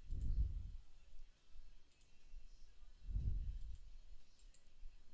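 Faint, scattered clicks of a computer mouse and keyboard during 3D modelling work, with two soft low rumbles, one at the start and one about three seconds in.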